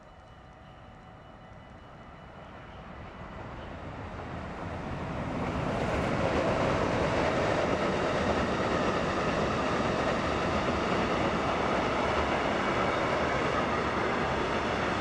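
Freight train of hopper wagons approaching and passing close by: its rumble and rail noise grow louder over the first six seconds, then hold steady as the wagons roll past.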